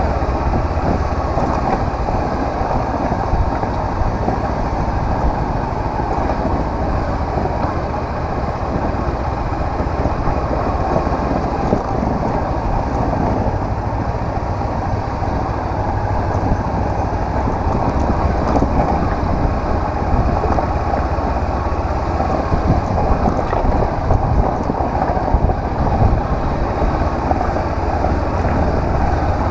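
Honda CB500X motorcycle's parallel-twin engine running steadily while riding, mixed with wind noise on the microphone.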